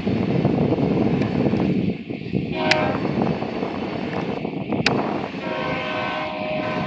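Diesel freight locomotive horn sounding a short blast about two seconds in, then a longer chord-like blast from about five seconds in, over the steady low rumble of the passing freight train.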